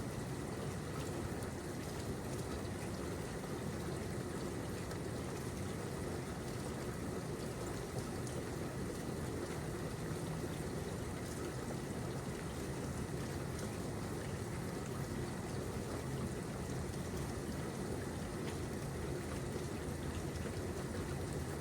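Steady rain falling, an even hiss with fine scattered drop ticks.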